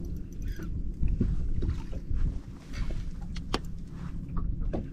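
Boat noise on a bass fishing boat: a steady low rumble with several sharp clicks and knocks scattered through it.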